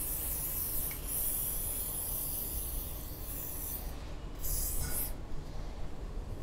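Aerosol can of fogging oil spraying onto a piston and connecting rod in separate squirts: a hiss that stops about a second in, a longer one of about three seconds, and a short burst about four and a half seconds in.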